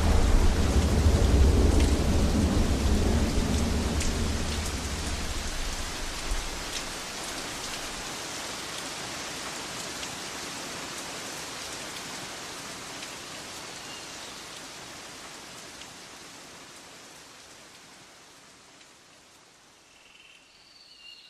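Rain and thunder sound effect: steady rain hiss with a deep thunder rumble that dies away about six seconds in, the rain then slowly fading to almost nothing. A couple of brief high chirps near the end.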